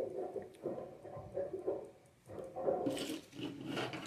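Small plastic accessory bags and parts rustling and clicking as they are handled, with a louder crinkle about three seconds in.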